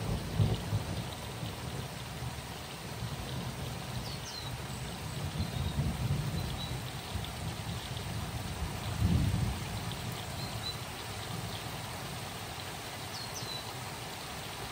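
Thunderstorm: steady rain hissing, with low thunder rumbling and swelling a few times, about a second in, around six seconds and around nine seconds, then easing off toward the end.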